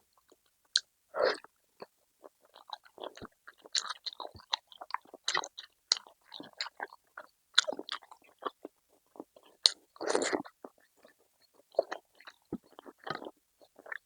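Close-miked eating: a person chewing and biting food, with irregular sharp crunchy clicks and short crackles of mouth noise.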